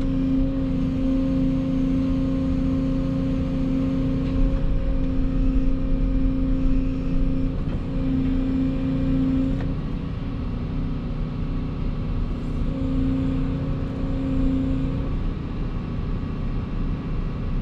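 Volvo EC220 excavator running under load: a steady diesel rumble with a constant hydraulic whine that eases off and comes back a few times as the machine works.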